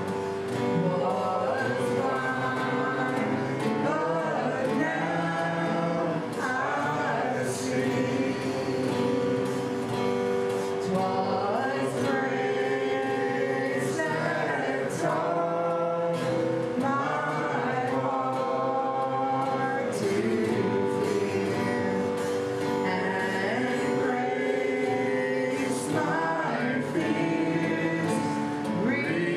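Live gospel song: a woman sings the melody over acoustic guitar accompaniment.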